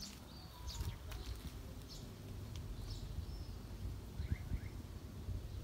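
Outdoor ambience: a steady low rumble with scattered short, high bird chirps, including two quick rising chirps about four seconds in.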